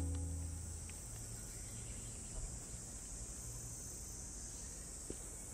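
The song's last acoustic guitar chord dies away in the first second, leaving a faint steady high-pitched hiss.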